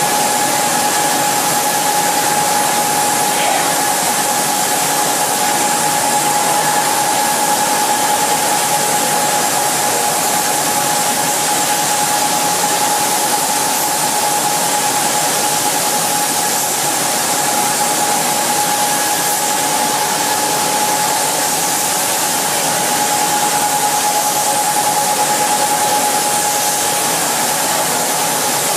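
Automatic spray guns on a reciprocator in a fluorocarbon coating booth, hissing steadily as they atomise paint. The booth machinery runs under them with a steady whine.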